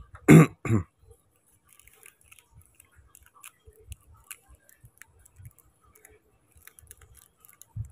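Faint, scattered small clicks and light rustling as a small plastic MP3 Bluetooth decoder module and its wires are handled.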